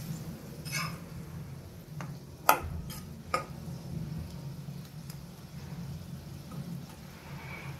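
A spoon stirring masala frying with butter in a pan, knocking against the pan a few times; the loudest knock comes about two and a half seconds in. A steady low hum runs underneath.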